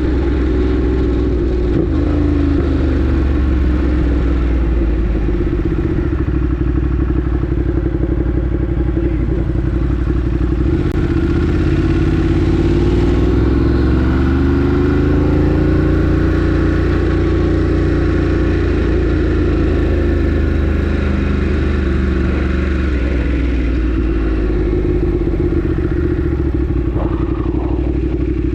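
Ducati Monster 1200 R's L-twin engine running under way, mostly steady, its pitch swelling up and easing back down with the throttle about halfway through, with rushing air behind it.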